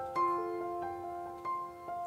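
Background music: a slow, gentle piano melody, single notes struck one after another and left to ring.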